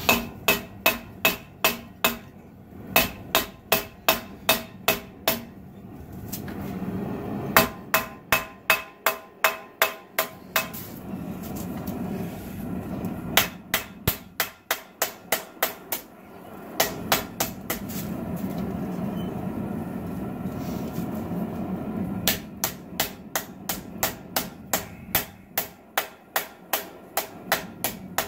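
Hand hammer striking a red-hot 80CrV2 steel knife blade on a steel anvil, drawing out the blade: runs of sharp ringing blows at about three a second, broken by short pauses. In the pauses a steady low rushing noise is heard.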